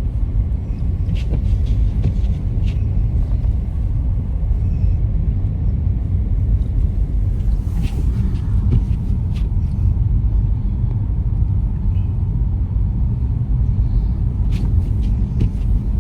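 Steady low road rumble of a moving car heard from inside the cabin, with a few faint clicks.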